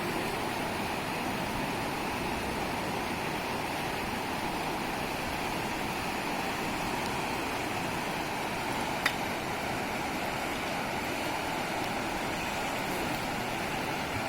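Steady rush of flowing floodwater, with a single sharp click about nine seconds in.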